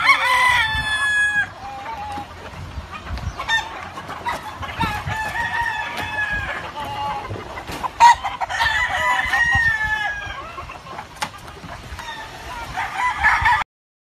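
Several gamecock roosters crowing in turn, with clucking between the crows; the loudest crows come right at the start and about eight seconds in. The sound cuts off abruptly just before the end.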